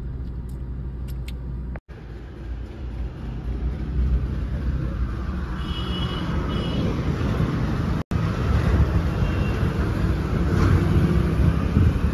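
Steady low hum inside a car for the first two seconds, then, after an abrupt cut, a steady low rumble of street traffic that grows louder after a second cut about eight seconds in. A few faint short high chirps come about six seconds in.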